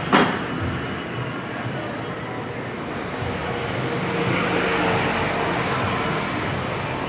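Steady rumble of a moving vehicle, with a sharp knock just after the start.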